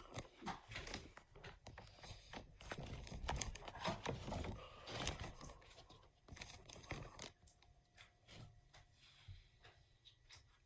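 Faint rustling, crinkling and scattered small clicks of objects being handled, quieter in the last few seconds, where a faint steady hum shows.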